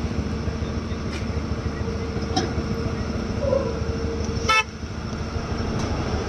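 Excavator's diesel engine running steadily with a held whine over it, a few faint clanks, and one short sharp pitched toot about four and a half seconds in.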